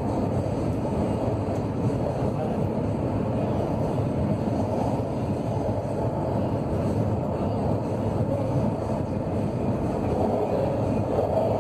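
CAF AS 2014 steel-wheeled electric metro train running through a tunnel, heard from inside the front car: a steady, even running noise of wheels on rail and the train's drive, with no changes in pace.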